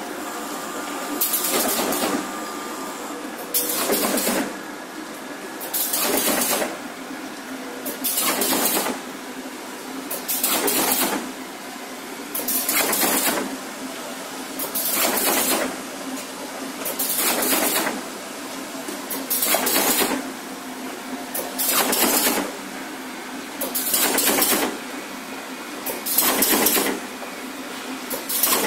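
Automatic carton partition assembly machine running in its work cycle: a steady hum with a noisy hissing burst about every two and a quarter seconds, each lasting about a second.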